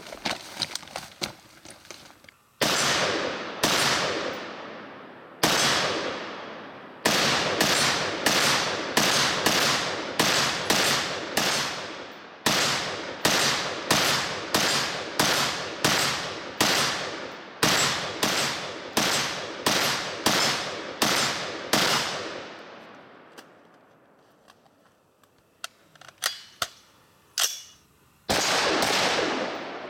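HM Defense HM15 Commander MB5 AR-15 rifle fired in a long string of single shots, mostly half a second to a second apart, each trailing off in an echo. The firing stops for a few seconds, with a few light clicks, and one more shot comes near the end.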